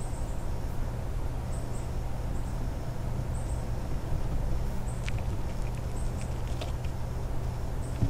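Gray squirrel handling and picking up peanuts right at the microphone: a cluster of small sharp clicks and scrabbles about five to seven seconds in. Underneath, a steady low hum and faint high chirps about once a second.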